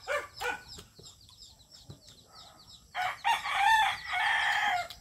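A rooster crowing once: a long call that starts about three seconds in and lasts nearly two seconds.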